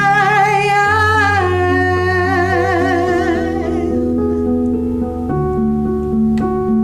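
A gospel-style song: a singer holds a long note with vibrato that ends about a second and a half in, then the instrumental accompaniment carries on with held chords and bass notes that change twice.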